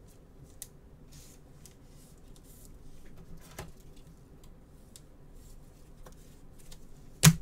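Faint rustling and light ticks of gloved hands handling trading cards and their box, with one sharp click near the end.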